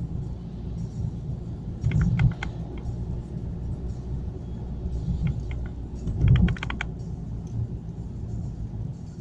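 Steady low road and engine rumble of a car driving, with two short runs of rapid clicking or rattling, a few clicks about two seconds in and a longer, faster run a little after six seconds.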